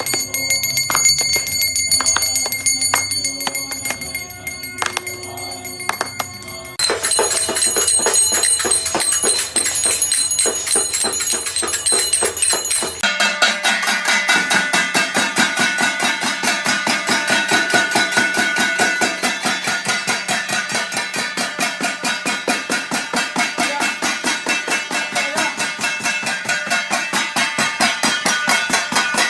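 Bells ringing and metal being struck, in three abrupt segments: steady ringing tones with clicks, then a switch about seven seconds in to higher ringing with rapid strokes, and from about thirteen seconds a steady, fast clanging of about three strikes a second.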